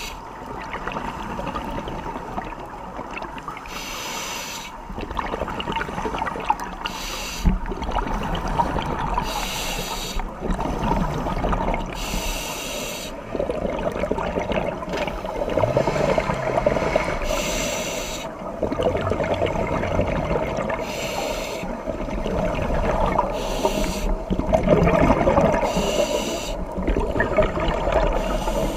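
Scuba diver breathing through a regulator underwater: short hisses every few seconds between longer stretches of bubbling and gurgling as exhaled air escapes.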